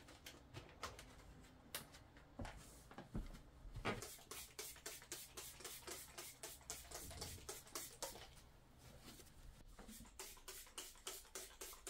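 Hand-held trigger spray bottle spraying in quick, repeated short hisses, coming about three or four a second near the end.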